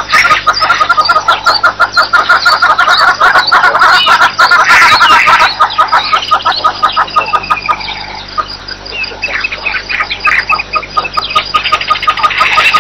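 A dense chorus of wild birds calling rapidly and over and over, with a few rising and falling whistles about five seconds in.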